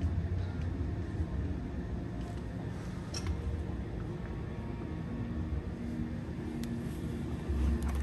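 A few light clicks and taps of a Genesis G90's interior fittings being handled, over a steady low room hum.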